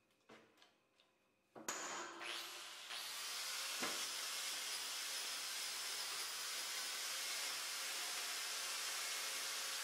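A few light handling clicks, then an angle grinder switches on about a second and a half in. Its whine rises as it spins up, and it runs steadily with a hissing scour as the disc cleans the face of a truck axle hub.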